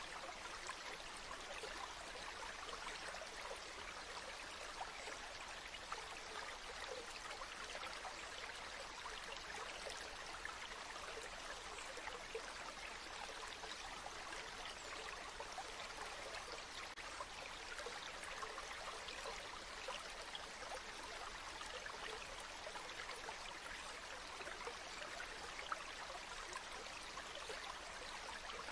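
Steady rushing, crackly noise like running water.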